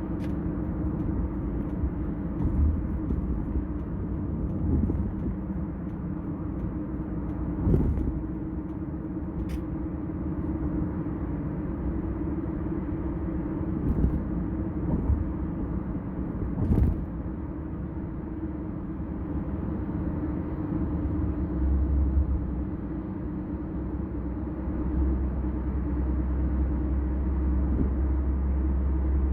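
Kia K5 sedan cruising on a highway, heard from inside the cabin: steady road and tyre rumble with an even hum, broken by a few brief knocks. The low rumble grows a little near the end.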